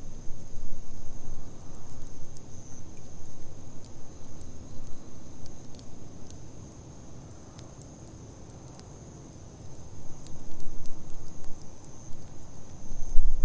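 Wood campfire burning with scattered sharp crackles and a low rumble that fades out for a couple of seconds midway, over a steady high chirring of insects, typical of crickets.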